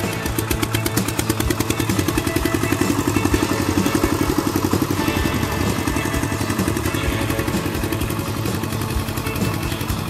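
Single-cylinder diesel engine of a Kubota walk-behind hand tractor chugging steadily with a rapid, even beat, working under load as it pulls a disc plough through the soil.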